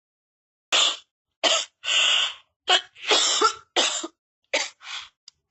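A person coughing in a hard fit of about eight coughs, starting just under a second in, some short and some drawn out.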